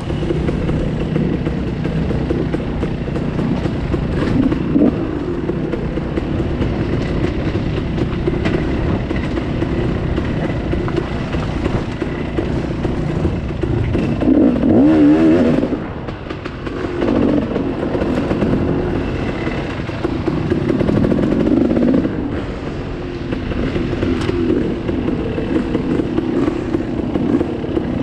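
KTM 300 XC two-stroke dirt bike engine running at low revs on a trail ride, heard close up from a camera on the bike. The throttle is opened in spurts that send the revs climbing, most sharply about halfway through, followed by a brief dip.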